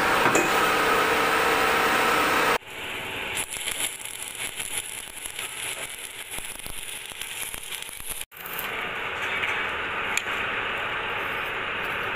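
Arc welding on stainless steel exhaust bellows: the arc crackles and spatters steadily for several seconds. Before and after it, across hard cuts, there is only steady workshop noise.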